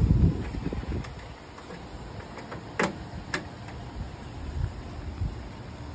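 Handling of a whole pig on a caja china's metal roasting rack: a low rumble at the start, then two sharp clicks about half a second apart near the middle.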